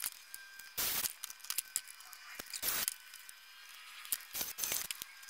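Handling noises: light metallic clicks and small rattles, with two short scuffs about one and three seconds in. No drill is running.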